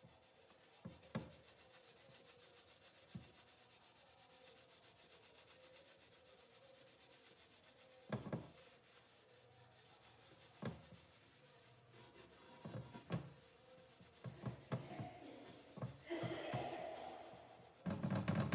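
A sponge scrubbing a red painted metal lid with cleaning paste: faint steady rubbing with a few light knocks, getting louder near the end as the scrubbing works up a lather.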